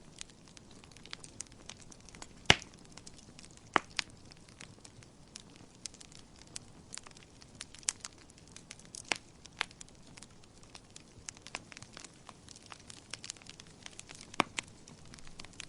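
Wood fire crackling in a fireplace: a quiet hiss with irregular sharp pops and snaps, three louder pops standing out.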